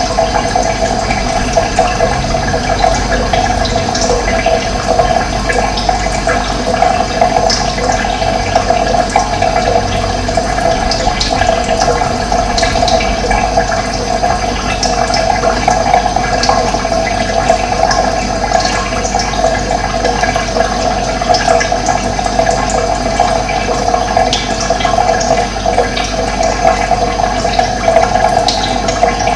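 Running water flowing steadily, a constant rush, with short bird chirps now and then above it.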